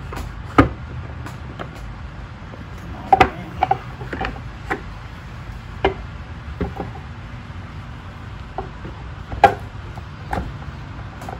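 Scattered clicks and knocks, about ten in all, as a statue's aluminium support pole is turned in its base to key it into place, over a low steady hum.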